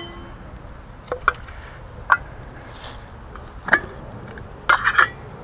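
Aluminium cooking pot lids clinking and tapping against the pots as they are handled: several sharp light metal clicks, with a quick cluster of three near the end.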